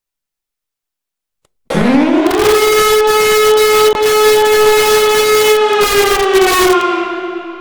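Pintsch Bamag siren sounding a test. About two seconds in it starts suddenly and winds up within a second to a steady wail, holds it for several seconds, then begins to drop in pitch and level near the end.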